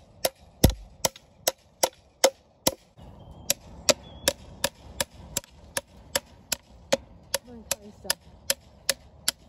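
Small hammer striking the head of fencing pliers over and over, a steady run of sharp knocks about two to three a second with a short pause about three seconds in. The strikes drive the pliers' pointed end under a fence staple in a wooden post to dig it out.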